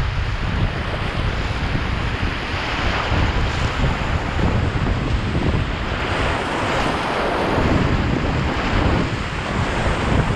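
Whitewater rapids rushing and churning around a packraft as it runs through them, with water splashing at the bow. A heavy low rumble of water and wind buffets the microphone.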